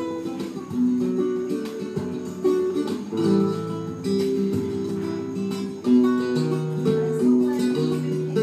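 Solo acoustic guitar played live: a melody of plucked notes over strummed chords.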